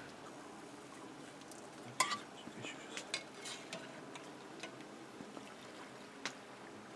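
Spoon clinking and scraping against a pot or bowl as soup is stirred and served: a sharp clink about two seconds in, a few lighter clinks after it, and one more near the end.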